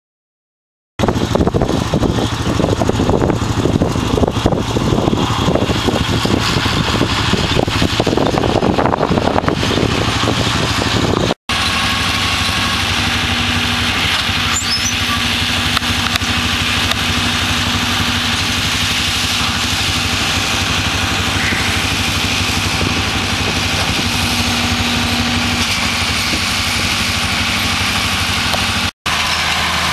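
Tractor engine running steadily. The sound starts abruptly about a second in and breaks off for an instant twice.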